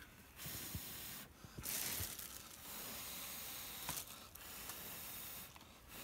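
A person blowing on a hand-held ivory-billed woodcreeper's body feathers in four long puffs of about a second each, the second the loudest. He is parting the feathers to look at the skin for fat deposits, pin feathers of molt and a brood patch.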